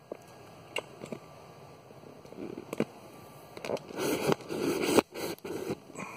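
Handling noise from a hand-held camera: a few scattered sharp clicks, then a stretch of rustling and scraping against the microphone from a little before four seconds in, with a hard click about five seconds in.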